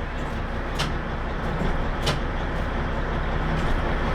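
A vehicle engine idling steadily, with a couple of sharp clicks about one and two seconds in.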